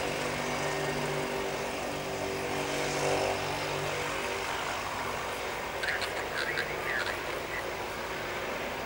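A Cessna 208B Grand Caravan's PT6A-114A turboprop winding down after shutdown: its steady hum and whine fade over the first few seconds as the propeller slows. A few short high chirps come about six to seven seconds in.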